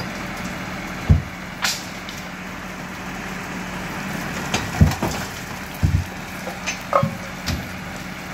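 Heavy recovery crane truck's engine running steadily while it lifts an overturned loaded semi-trailer back onto its wheels, with several dull knocks.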